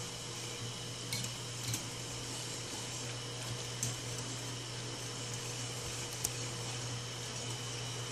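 Wire whisk stirring a thick creamy mixture in a ceramic bowl, with a few light clicks of the whisk against the bowl's side, over a steady low hum.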